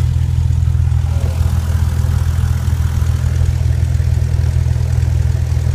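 1998 Cessna 172R's four-cylinder Lycoming engine and propeller running steadily, heard inside the cabin as a loud, even low drone.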